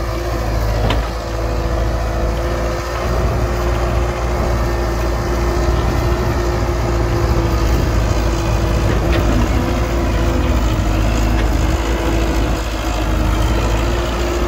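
Heavy diesel construction machinery, an excavator and dump truck, running steadily: a loud low drone with a held hum above it and a few faint clicks.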